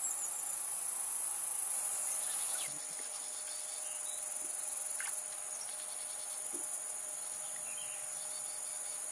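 Steady high-pitched chorus of insects in the streamside grass, dropping slightly in level about three seconds in, with a couple of faint ticks.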